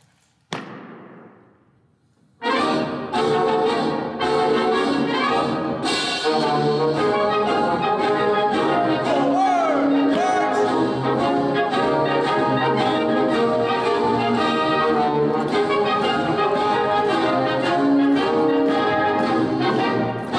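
A single sharp knock with a long echo, then, about two and a half seconds in, brass band music with a steady drum beat starts and plays on.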